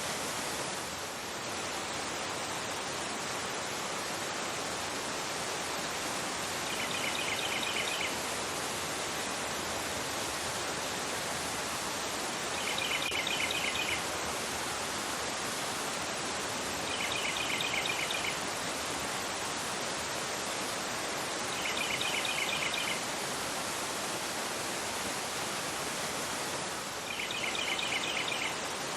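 Fast river rushing steadily over a rocky bed. Five times, about every five seconds, a bird gives a short burst of rapid high chirps over the water.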